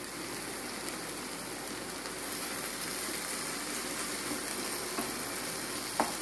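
Masala-coated prawns sizzling steadily in oil in a nonstick frying pan, with a few light clicks of a spatula against the pan near the end as they are turned.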